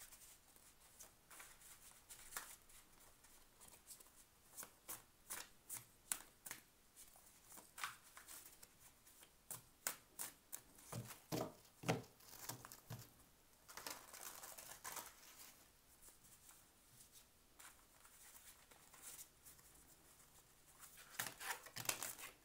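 A deck of Friends Tarot cards being shuffled by hand: soft, irregular flicks and slaps of card stock, with a few duller knocks about halfway through.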